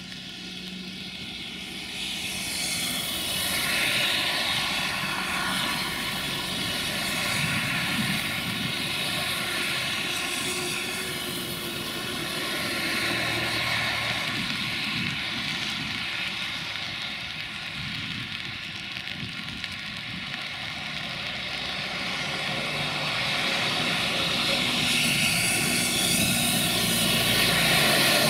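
A 060-DA (LDE2100) diesel-electric locomotive running as it approaches slowly. Its engine gives a steady high whistle of several held tones over a low rumble, the whistle this class is known for. It grows louder toward the end.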